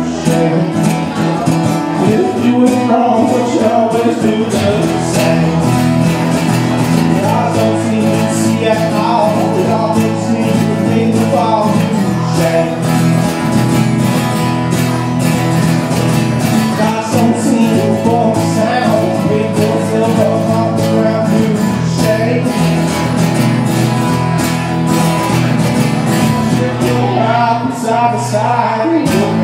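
Two acoustic guitars strummed together with a bass guitar, playing a song live.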